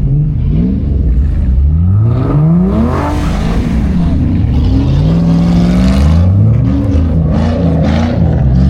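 Car engines revving up and down again and again, more than one at times, as cars spin donuts in the snow; the revs climb steeply about two to three seconds in.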